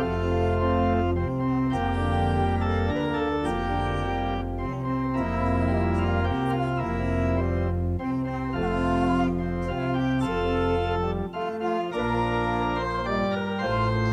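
Church organ playing slow, sustained chords over a bass line, the chords changing about once a second.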